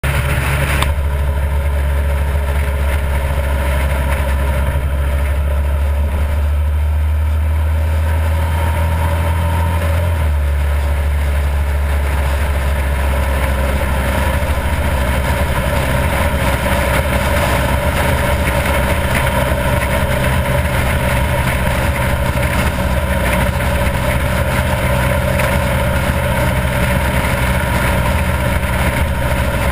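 Harley-Davidson V-twin motorcycle engine running steadily at highway cruising speed, with wind and road noise rushing over the microphone. The engine's low note changes about ten seconds in.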